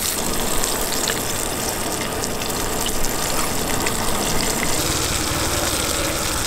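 A whole Pacific mackerel frying in olive oil in a small camp frying pan: a steady sizzle with scattered small pops and crackles.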